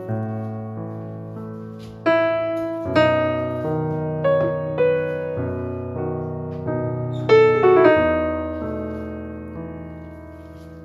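Background solo piano music: a gentle melody of single struck notes and chords, each left to ring and fade.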